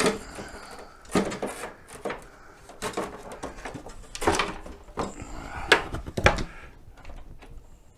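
A string of separate knocks, sharp clicks and short rustles from hands handling parts on a mobility scooter, a few every couple of seconds.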